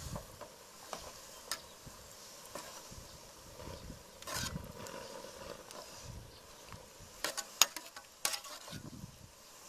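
Metal ladle stirring fish soup in a large metal pot: liquid sloshing, with scattered clinks of the ladle against the pot and a cluster of sharp clinks in the last third.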